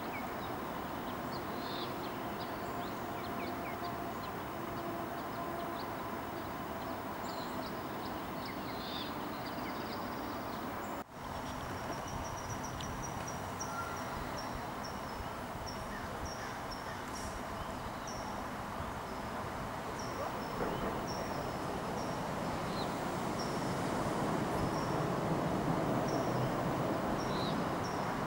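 Steady distant traffic noise with small birds chirping. After a brief dropout about eleven seconds in, a short high bird note repeats steadily, about once or twice a second, while the traffic noise swells toward the end.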